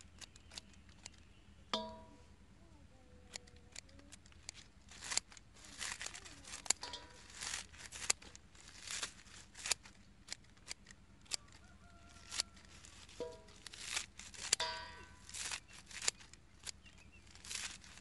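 Scissors snipping and tearing through leafy plants in quick, irregular cuts, chopping them into small pieces. A few short animal calls come through about two seconds in and again a few times later on.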